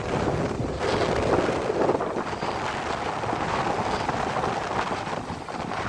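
Steady wind noise on the microphone over the wash of surf on the beach.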